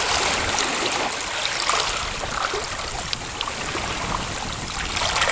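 Water splashing and sloshing as a small sailfish, held by its bill, moves in the water right beside the boat, with scattered small drips and splashes.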